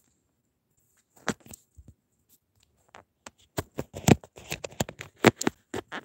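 A run of sharp, irregular clicks and taps, a few at first, then coming thick and loud from about three and a half seconds in.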